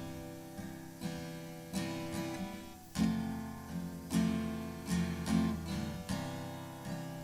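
Acoustic guitar strumming a slow chord introduction, a chord struck about every second with the strings ringing between strokes.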